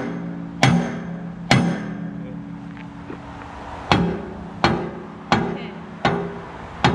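Hammer striking a stuck steel linkage pin on an excavator bucket: seven sharp metal-on-metal blows, each leaving the heavy steel part ringing. The first two come about a second apart, then a pause, then five in a quicker, steady run. The pin is pinched tight and is being driven out.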